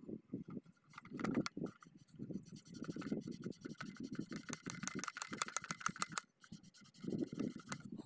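Handling noise from a center pivot irrigation collector ring, its brass slip rings and plastic terminal blocks bumping and scraping under the hands, with a quick run of scratchy clicks through the middle.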